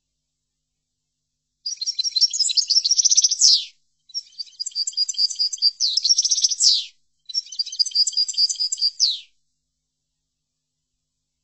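European goldfinch song: three phrases of rapid twittering and trilled notes, each ending in a quick falling sweep, separated by short silent gaps. The first phrase begins almost two seconds in and the last ends about two seconds before the close.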